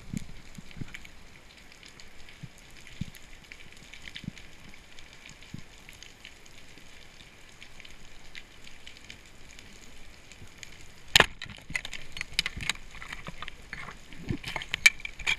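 Underwater crackling of a rocky reef picked up by a camera in its housing: a steady patter of small clicks, with a few sharper, louder clicks about 11 seconds in and again near the end.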